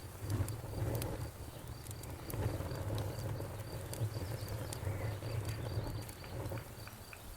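Campfire burning with a low steady rumble and sparse sharp crackles and pops. An insect chirps high and faint behind it, in an even pulse of about four chirps a second.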